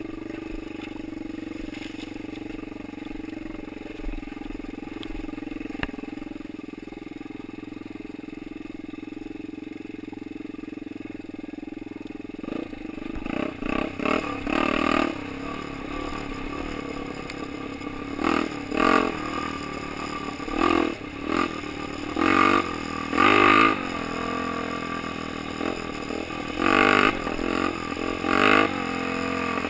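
Honda XL 125 R enduro motorcycle's single-cylinder four-stroke engine running off-road. It runs steadily for about the first twelve seconds, then rises and falls in pitch with repeated short bursts of throttle.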